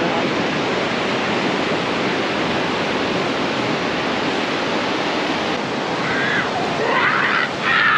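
Ocean surf breaking on the beach, a steady rushing wash of waves. Near the end a few brief high voice sounds cut through it.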